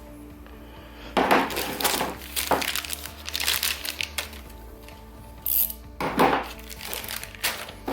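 Chrome-plated steel stubby wrenches clinking and clattering against each other and their holder as the set is handled, in irregular bursts with a short lull midway, over quiet background music.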